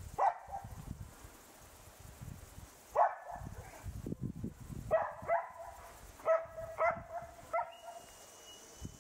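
A dog barking, about seven short barks spaced irregularly, each with a brief ringing tail.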